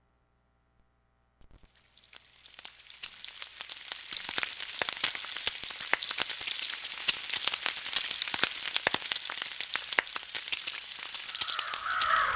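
Frying sizzle: crackling hiss full of sharp pops, fading in after about a second and a half, then steady. A different, louder sound comes in just before the end.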